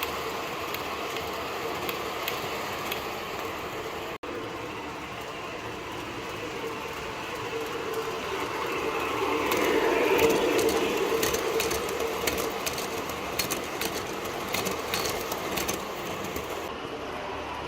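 Subway train running between stations, a steady rumble with a hum that swells louder about halfway through. From the middle on it is dotted with rapid sharp clicks from the wheels and rail joints.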